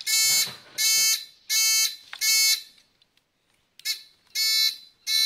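Electronic turn-signal buzzer beeping in time with the flasher, about one and a half beeps a second. The beeping stops for about a second past the middle, then starts again.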